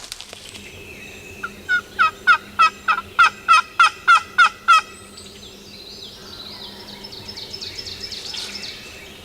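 Turkey yelping: a loud run of about a dozen evenly spaced yelps, roughly three a second. It is followed by a fainter, rapid rolling turkey call.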